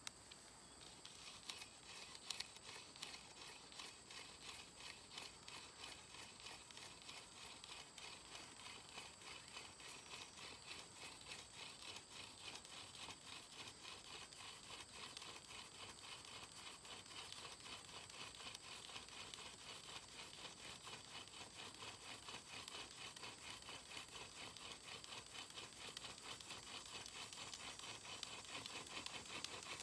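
Hand-drill friction fire: a wooden spindle spun back and forth between the palms, its tip grinding in the notched socket of a wooden fireboard, making a faint, rhythmic scratchy rubbing with each stroke. This is the slow warming-up stage of the drilling, and the strokes grow a little louder toward the end.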